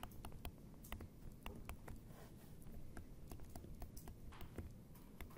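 Faint, irregular light taps and clicks of a stylus on a tablet screen while words are handwritten, a few taps each second over a low room hum.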